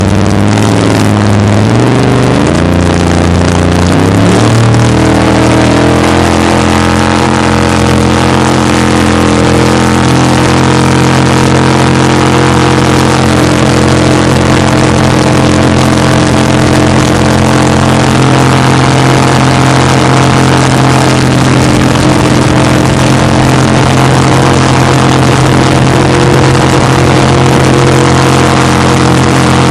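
Racing jet boat's engine running hard, heard up close from the boat's rollbar: its pitch climbs in steps over the first few seconds as the boat accelerates, then holds steady and loud at speed, over a constant rush of wind and water.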